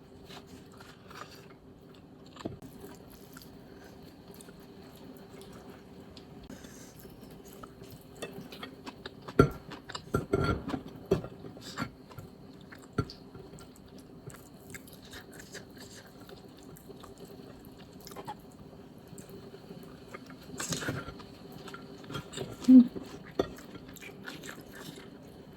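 A person chewing and eating food, with scattered small clicks and knocks, likely from cutlery or a plate. A cluster of louder knocks comes about ten seconds in, and one sharp louder knock comes near the end.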